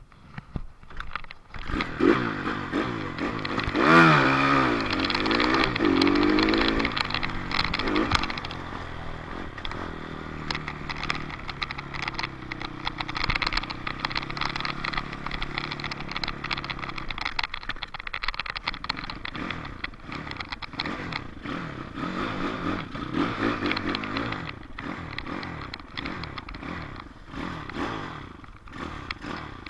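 Dirt bike engine coming in loud about two seconds in, revving up and down a few times, then running at a steadier pitch with a brief drop past the middle before picking up again, with rattling and clatter over it.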